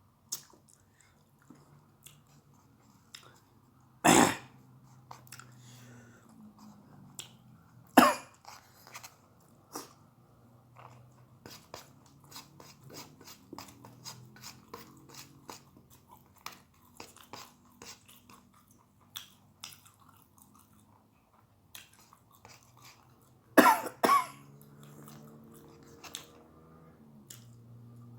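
A person chewing a meal of fried egg, raw long beans and peanut sambal, with many small wet clicks of chewing throughout. There is a loud cough about four seconds in, another about eight seconds in, and two more close together near the end.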